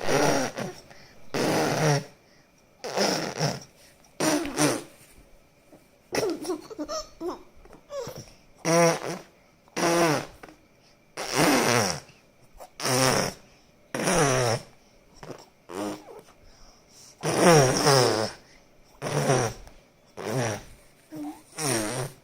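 A young child blowing voiced raspberries with the lips, a buzzing 'bhur bhur', over and over: about fourteen separate buzzes of half a second to a second each, the pitch wavering in some.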